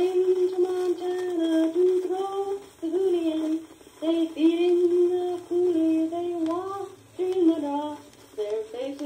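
A single high voice singing a slow tune in long held notes, from a 1956 home-made disc recording played back on a Crosley Cruiser portable record player.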